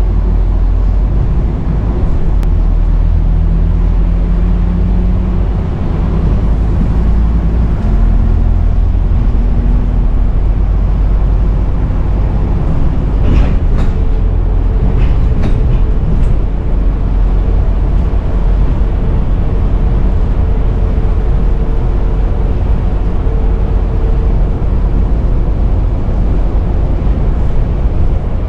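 Scania N230UD double-decker bus heard from inside the lower deck while on the move. Its five-cylinder diesel drone climbs in pitch over roughly the first ten seconds as the bus pulls away or accelerates, then holds a steady whine. There are a few sharp clicks or rattles about halfway through.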